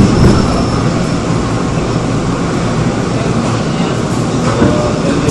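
Seoul Metro Line 2 old 2000-series resistance-controlled electric train running, a steady rumble and hiss of wheels on rail.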